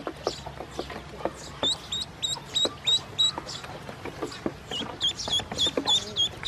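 Ducklings peeping, a run of short high peeps about three a second in two bouts with a pause in the middle, along with scattered short taps.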